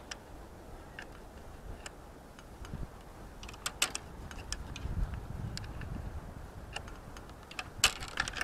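Hand wrench turning the mounting screws on a yard light fixture's bracket: irregular sharp metallic clicks, some in quick clusters.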